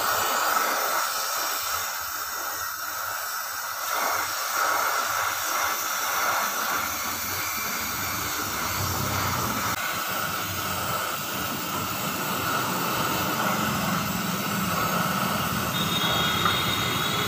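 Gas welding torch flame hissing steadily while welding aluminium.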